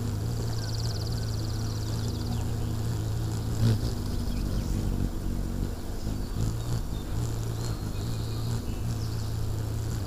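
Hummingbirds at a feeder: a steady low hum of beating wings with a few short, buzzy high-pitched trills, the first about half a second in and another near the end.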